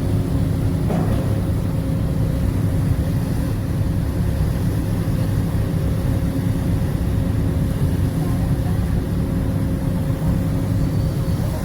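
Steady low drone of a car ferry's engines, with a constant hum over a deep rumble.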